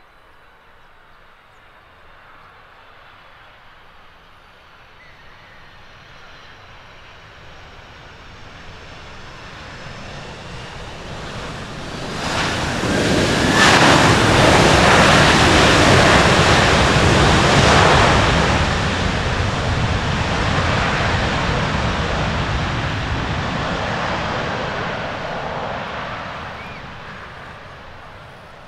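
A Boeing 767-300ER airliner landing, its twin turbofan engines and rushing airflow growing louder as it touches down. The noise is loudest as the jet passes about twelve seconds in, stays loud for several seconds as it rolls out and slows on the runway, then fades over the last few seconds.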